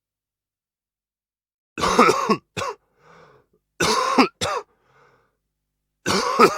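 A man coughing: hacking coughs about two seconds apart, each a harsh cough followed quickly by a shorter one, with faint breaths drawn in between.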